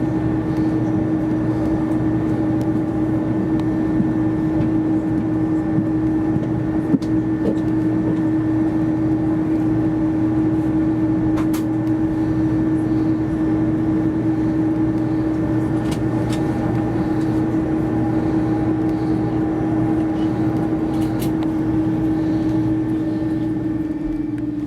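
Steady jet engine drone inside the cabin of an Airbus A330-200, its Pratt & Whitney PW4168A turbofans running with a strong humming tone that dips slightly in pitch near the end.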